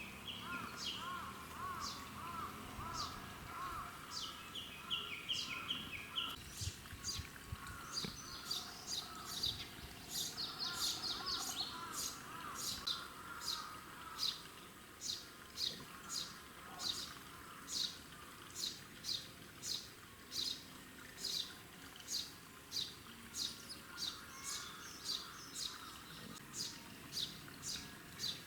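Small birds calling: warbling, chattering phrases in the first few seconds and again around the ten-second mark, then a long series of short, high chirps repeating evenly at about one and a half a second.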